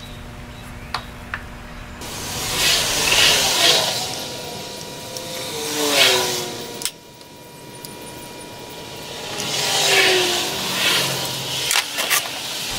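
Distilled water trickling and gurgling from a squeeze-bulb battery filler into lead-acid battery cells, in two pours that rise in pitch, the first cutting off suddenly. A few light plastic clicks from the filler and the cell openings.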